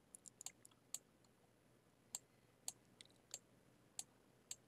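Computer mouse buttons clicking, about ten sharp clicks: a quick cluster in the first second, then single clicks about every half second.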